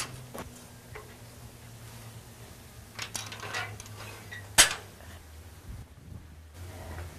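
Wrought-iron church gates being shut and fastened by hand: scattered metallic clinks and rattles, with one sharp clank a little past halfway.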